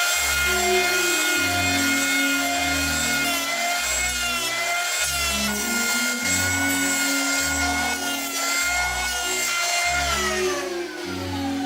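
A small power tool's motor running with a steady whine that wavers slightly, then winds down near the end, over background music with a steady bass line.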